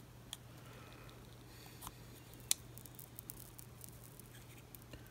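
Soldering iron working a copper strip laid across an SMD chip's pins: faint scattered ticks and clicks, with one sharper click about two and a half seconds in, over a low steady hum.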